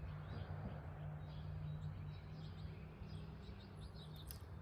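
Small birds chirping faintly in short repeated notes over a steady low outdoor hum, with a couple of faint clicks near the end.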